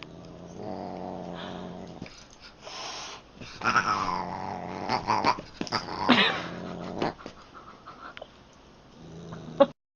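A pet cat growling and yowling in several drawn-out, gliding calls.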